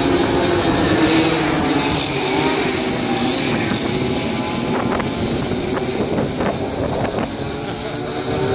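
Several racing karts' engines running round a dirt oval during a heat, revving and easing so the engine note rises and falls. The note fades somewhat in the middle and grows again near the end.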